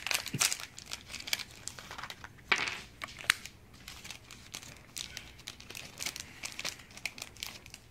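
Foil booster pack crinkling and tearing as it is opened by hand, in irregular crackles with a few sharper ones.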